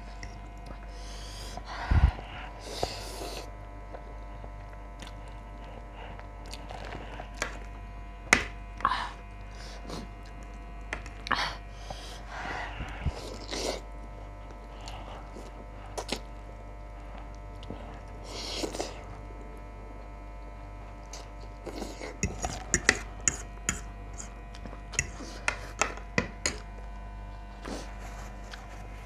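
Eating sounds: a metal fork and spoon clinking and scraping on a plate, with short spells of slurping and chewing of noodles. A steady faint hum runs underneath, and a quick run of small clicks comes near the end.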